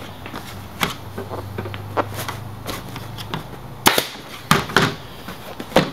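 Pneumatic air stapler firing staples to fasten a dirt bike seat cover to the plastic seat base: several sharp snapping shots, the four loudest in the second half.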